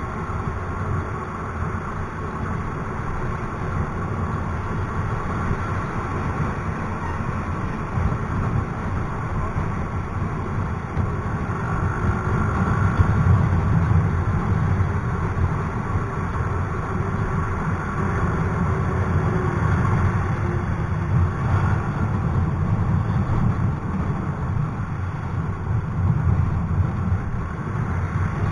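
Wind buffeting the microphone of a moving motor scooter, over the steady running of the scooter's engine, a Yamaha Mio i 125's small single-cylinder, and the surrounding traffic. The loudness swells a little around the middle and again near the end.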